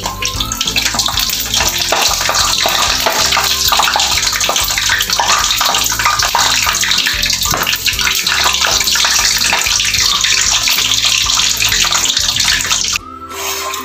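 Hot oil sizzling and crackling steadily around donuts deep-frying in a pan. The sizzle stops abruptly near the end.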